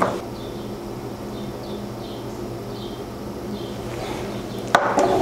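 A steady low hum of room tone, with a few faint short high chirps in the middle and a click near the end.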